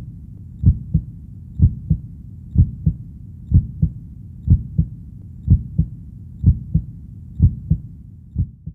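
Heartbeat sound effect: a steady lub-dub, pairs of low thumps about once a second, over a low steady hum.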